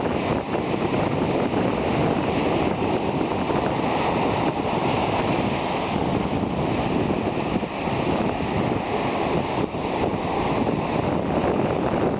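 Strong wind buffeting the microphone over the rush of surf on a beach, a steady loud rumbling noise without letup.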